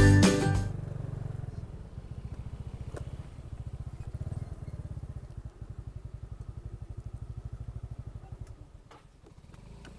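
A vehicle engine running at a steady low speed, a low rapid even pulsing, after music fades out in the first second.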